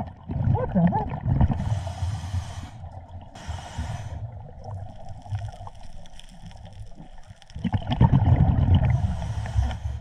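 Scuba regulator breathing underwater: exhaled bubbles gurgling and rumbling, broken by two short hissing inhalations about two and three and a half seconds in, with a louder bubbling exhalation near the end.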